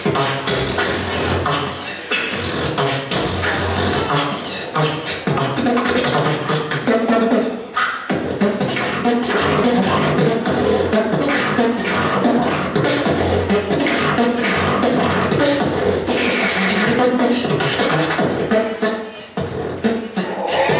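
A beatboxer performing a battle round: a rapid, continuous stream of vocal drum hits (kick, snare and hi-hat sounds) woven with hummed, pitched bass tones.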